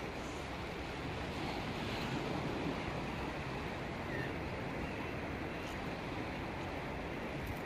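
Steady sea surf washing in, with wind noise on the microphone.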